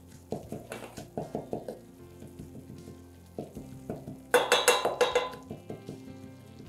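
Wooden spoon stirring and scraping corn flour frying in butter and oil in a stainless steel saucepan, the roux sizzling as it starts to turn golden. A run of quick strokes comes near the start, and the loudest scraping comes in a burst about four seconds in.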